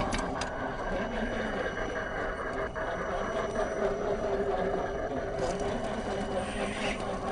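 1/10-scale Lesu Unimog 406 RC truck running off-road, a steady mechanical drone with several held tones.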